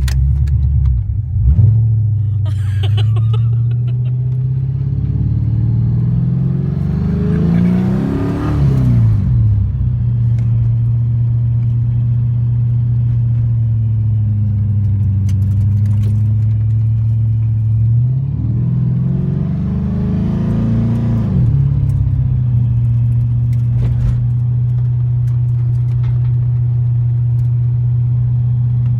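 LS1 V8 engine in a Nissan 240SX idling steadily, blipped twice: one rev about six seconds in and another about eighteen seconds in, each rising and falling back to idle.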